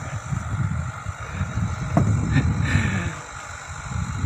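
Low, uneven rumble of a fishing boat's engine running, with a single sharp knock about two seconds in.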